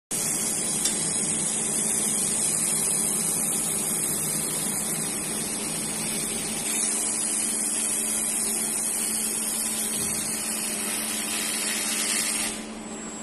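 Automatic laser welding machine at work: a steady, loud hiss over a constant machine hum. The hiss cuts off suddenly near the end as the weld stops, leaving the hum.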